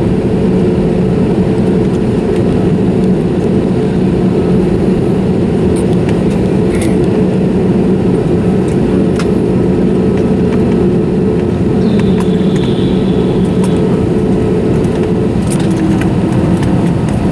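Steady cabin hum of a Frontier Airlines Airbus A320neo, with held engine and air-system tones and a few light clicks. The tones change pitch near the end.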